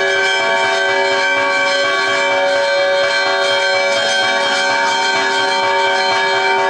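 Church bells ringing a continuous peal, overlapping strikes blending into a steady ringing.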